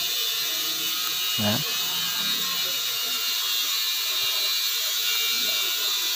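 A steady hiss, with faint small clicks and rattles of a motorcycle starter motor's metal parts being handled as its brush plate and housing are fitted together.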